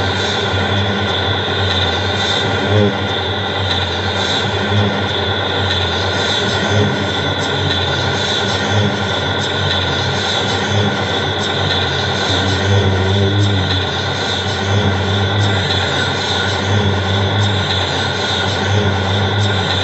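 Noise music: a dense, steady wall of layered hums and hiss that never breaks, with a slight pulse about every two seconds.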